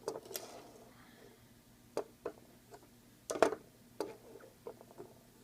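Scattered clicks and light knocks of Leatherman Wave multitools being handled, with a sharper cluster of clicks about three and a half seconds in.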